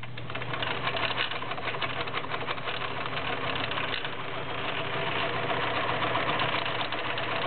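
Vintage Kenmore model 1625 all-metal sewing machine running steadily, sewing a zigzag stitch: an even motor hum with a fast, regular needle clatter.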